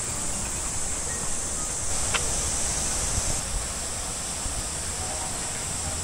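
Steady outdoor noise, an even wind-like rush with a constant high hiss over it, and one faint click about two seconds in.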